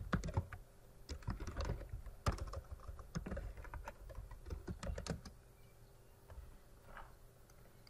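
Computer keyboard keys clicking as a command is typed, a quick irregular run of keystrokes that stops about five seconds in, with only a few faint clicks after.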